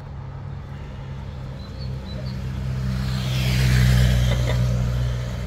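A motor vehicle driving past close by, its engine and tyre noise swelling to a peak about four seconds in and then fading, over a steady low engine drone.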